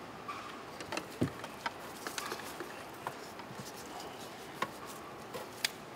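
Scattered light clicks and knocks of hard plastic PVC spa plumbing parts being handled and fitted by a gloved hand, about half a dozen irregular taps over a faint steady background.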